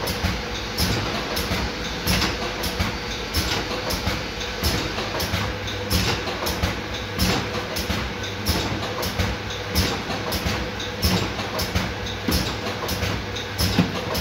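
Bottling line conveyor running, carrying capped hand-sanitizer bottles on a plastic modular chain: a steady machine hum with a faint held tone, under frequent irregular clicking and clatter of the chain and the bottles against the guide rails.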